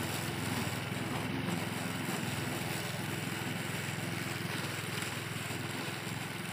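Petrol walk-behind lawn mower engine running steadily while it is pushed through grass, mowing.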